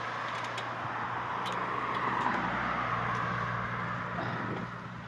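A car driving past, its engine hum and tyre noise swelling to a peak about halfway through and then fading away.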